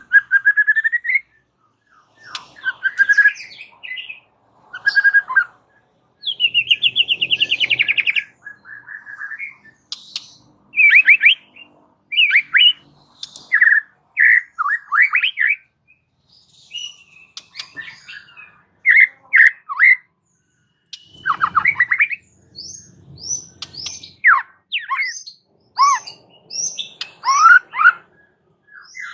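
White-rumped shama (murai batu) singing loudly in separate phrases of clear whistles and quick rising and falling notes, with a fast trill partway through and short high notes near the end.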